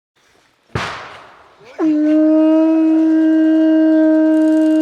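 A sudden crash that dies away over about a second, followed by one long horn blast, a steady low note held for about three seconds.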